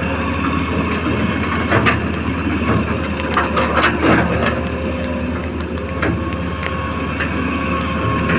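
Huina RC excavator's electric gear motors whirring steadily as the bucket scrapes and digs into sand, with crunching scrapes about two seconds in and again around three and a half to four seconds.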